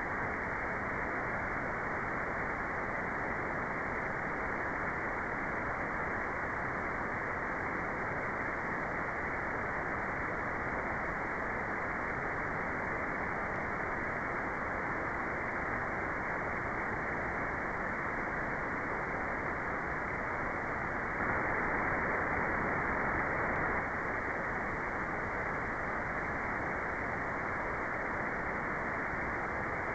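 Steady white noise: an even, dull hiss with no high end, a little louder for a few seconds about two-thirds of the way through.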